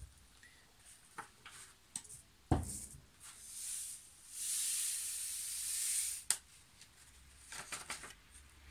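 Coloured salt poured from a folded sheet of paper into a glass jar, a steady hiss of trickling grains lasting about two seconds in the middle. A sharp knock comes a little before it, with small paper clicks around it.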